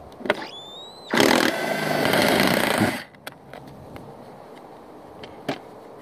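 Small Hammerhead cordless power driver backing out a Phillips screw: a short rising whine as the motor spins up, then about two seconds of steady running before it stops, followed by a few light clicks.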